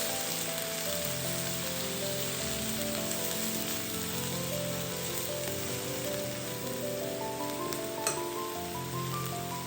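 Squid and celery sizzling steadily in a hot pan as they stir-fry, with one sharp clack about eight seconds in. Melodic background music plays throughout.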